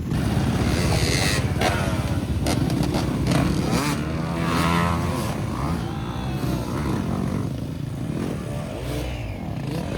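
Off-road dirt bike engines running and revving, with the pitch rising and falling about halfway through as a bike passes.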